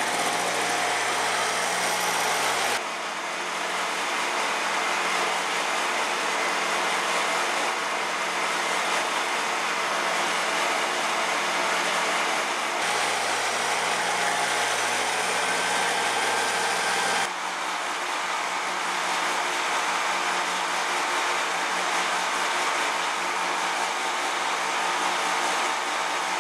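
Shopsmith Mark V woodworking machine running: a steady motor hum and whine with several held tones over a broad hiss. The tone and level change abruptly about three seconds in, near thirteen seconds and again near seventeen seconds, as the machine runs at different speed-dial settings.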